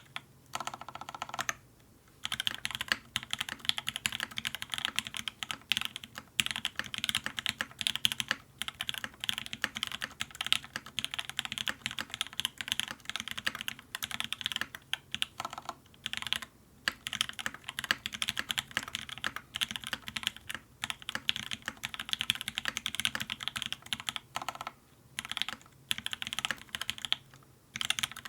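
Typing in steady runs on a Duck Orion V2.5 mechanical keyboard with lubed and filmed H1 switches in a full aluminium plate and GMK keycaps, the keystrokes rapid and dense, broken by a few short pauses.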